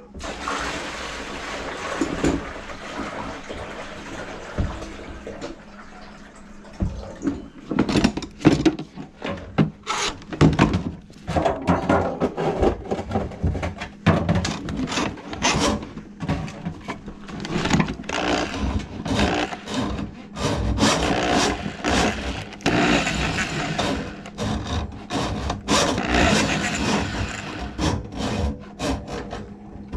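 Handling noise from a drill-driven drum drain auger being set up in a bucket under a kitchen sink: a rushing noise for the first several seconds, then many irregular knocks, clanks and scrapes. The drill motor is not yet running.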